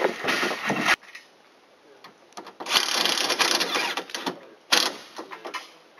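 Cordless DeWalt driver runs in one burst of about a second and a half, driving a fastener into a metal junction box, followed by a short sharp click. A second of scraping noise comes before it.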